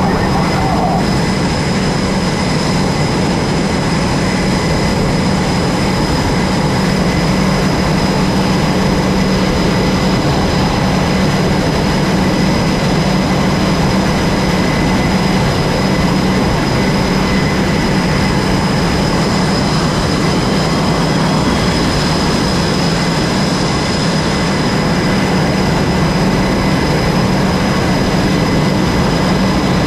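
Jet engines running steadily with a loud, unchanging roar and a constant high whine.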